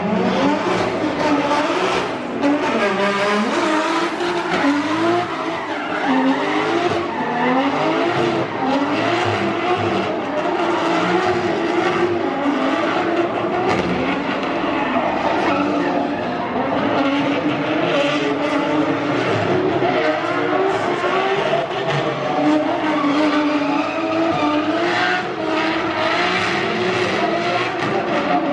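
Drift car engines revving hard and constantly rising and falling in pitch, with tyres squealing as the cars slide through a competition run.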